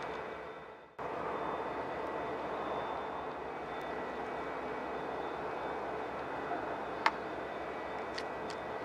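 Loaded coal train passing: a steady rumble and rattle of freight cars on the rails mixed with the drone of a diesel locomotive at the rear of the train. The sound dips out and cuts back in about a second in, and a single sharp click comes about seven seconds in.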